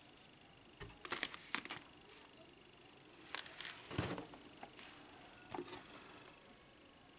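Cardboard toy boxes being handled inside a cardboard shipping box: faint taps, scrapes and rustles in a few short clusters, the loudest a knock about four seconds in as a box is put down and another lifted out.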